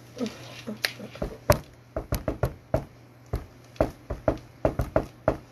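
Hands beating on a tabletop: a quick, uneven run of knocks, about three a second, starting about a second in.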